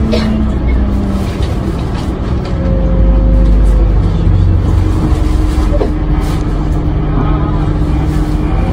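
Isuzu Erga city bus (2KG-LV290N3) with its four-cylinder diesel running, heard from inside the cabin while under way. The engine note steps between pitches, and it gets louder about three seconds in.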